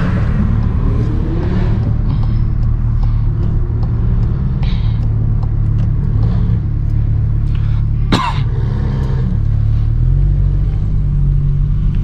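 Car engine running at low revs with a steady low rumble. Its pitch rises briefly near the start and its note shifts about ten seconds in. A single short, sharp sound cuts through about eight seconds in.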